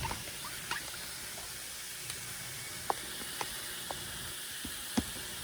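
Steady sizzling hiss of steaks frying in butter in a pan, with a few light clicks scattered through it.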